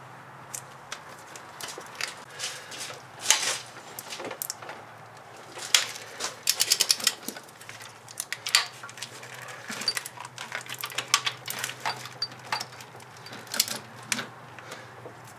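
Ratchet clicking in short runs and single clicks as it is swung back and forth, turning cylinder head bolts through their final 120-degree angle-torque stage, with a fast run of clicks about six to seven seconds in.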